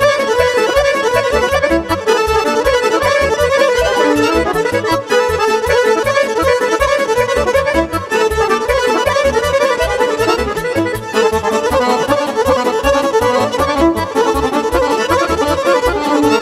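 Instrumental break of Romanian party music: a Roland digital accordion plays a fast melody over electronic keyboard accompaniment with a steady, driving beat.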